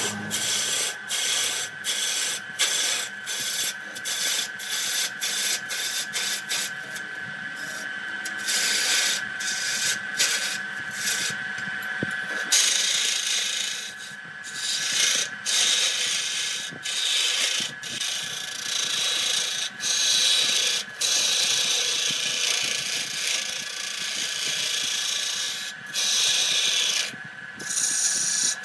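A lathe gouge cutting into spinning areca wood: a scraping, shaving cut with the tool biting in quick repeated strokes, then cutting nearly continuously from about halfway. A steady high whine runs underneath.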